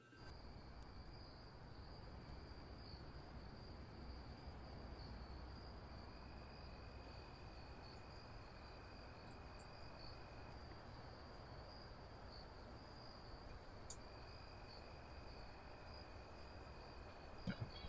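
Faint low background noise with a steady, high-pitched insect trill. A second, lower trill comes in for a few seconds twice, and a couple of soft clicks sound near the end.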